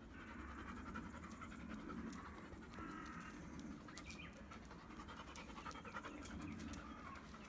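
Labrador retriever panting steadily, open-mouthed.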